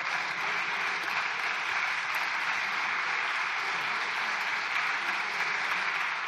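Steady applause from deputies in a parliamentary chamber: many hands clapping at once.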